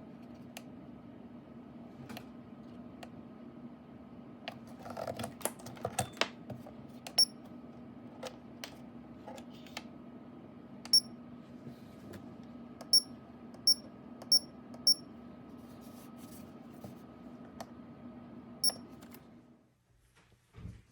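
Clicks and knocks of switches and handling, with several short, sharp high beeps, over a steady electrical hum from running equipment. The hum cuts off about a second before the end as things are switched off.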